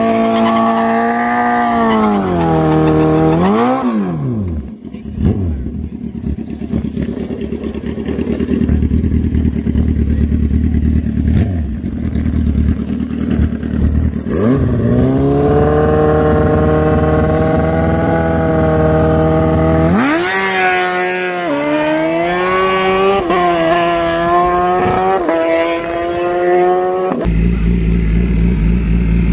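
Drag-race sport bike engine revving at the start line. It blips up and down, holds at steady high revs for a few seconds, then revs quickly up and down again. Near the end it cuts to another motorcycle idling low and steady.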